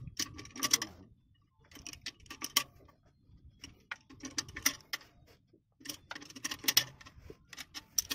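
Ratchet wrench clicking in about five short runs as the clutch pressure-plate bolts are tightened onto the flywheel of a Nissan Diesel truck.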